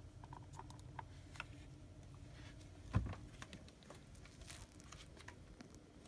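Plastic detergent and fabric softener bottles handled and set down on a carpeted floor: small clicks and light plastic rustles, with one dull thump about three seconds in.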